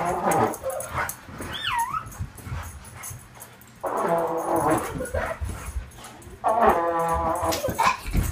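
A child blows three held notes on a trombone while a dog whines along in a high, wavering pitch between them. A low thud comes right at the end as the child falls onto the floor.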